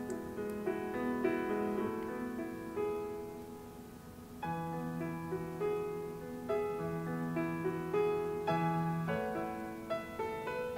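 Background piano music: a gentle melody of struck notes over a lower accompaniment, easing off briefly about four seconds in before resuming.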